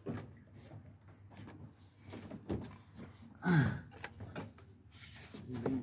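Scattered light clicks and knocks of the clutch master cylinder and its fittings being handled and slid into the slotted hole in the bulkhead, with a short low vocal sound falling in pitch about three and a half seconds in.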